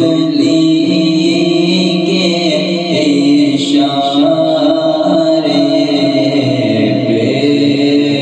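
Slow devotional chanting: a voice holding long notes, the pitch shifting about three seconds in and again near seven seconds.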